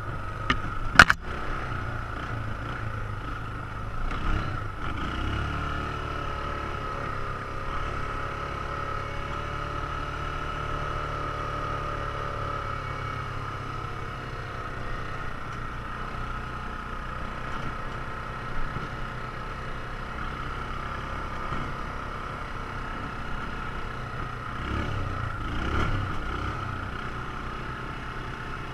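ATV engine running steadily, its pitch shifting gently with the throttle, with a sharp knock about a second in.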